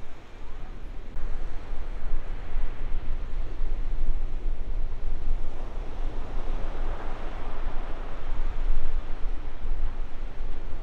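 Breaking ocean surf with wind buffeting the microphone as a steady low rumble; the wash of the waves swells up between about six and eight seconds in.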